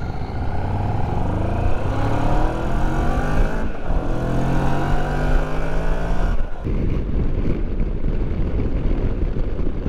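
Moto Morini X-Cape 649's parallel-twin engine under hard acceleration, rising in pitch through the gears with a shift about three and a half seconds in. From about six and a half seconds in, wind rush takes over.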